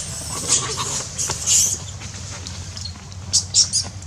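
Macaques squealing in short, high-pitched bursts during a scuffle, in three clusters, over a steady low hum.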